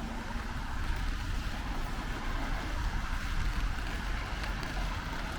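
Steady rain on a city street, with a low rumble of passing traffic underneath.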